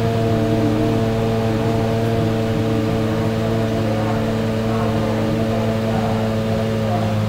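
A GT race car's engine idling steadily, its pitch holding level as the stationary car waits to launch.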